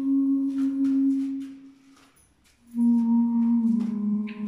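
A voice singing long, steady held notes: one note fades out about two seconds in, then after a short pause for breath a second note starts and steps down in pitch and back up near the end.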